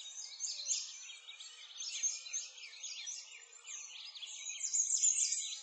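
A chorus of many small birds chirping and singing at once, dense overlapping quick high chirps.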